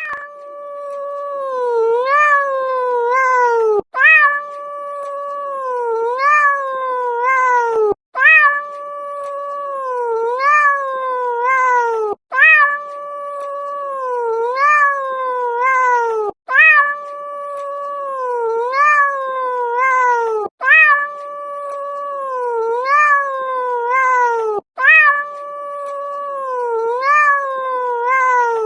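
A cat yowling: a long, drawn-out call of about four seconds, mostly held at one pitch with a few quick upward leaps, repeated identically about seven times, each time broken off sharply before the next.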